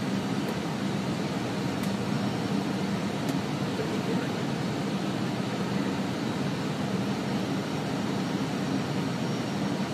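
Steady cabin noise of an airliner in flight: an even drone of engines and rushing air.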